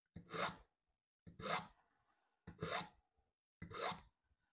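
Knife blade drawn through the slot of a Smith's mini knife sharpener: four scraping strokes, about one a second, each pull a short rasp of the edge against the sharpening rods.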